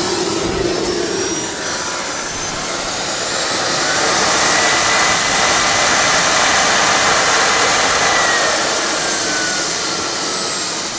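ATJ model gas turbine engine running with a loud rush and high whine. About four seconds in, the whine rises in pitch as the turbine spools up. It holds there, then falls back over the last few seconds as the turbine winds down.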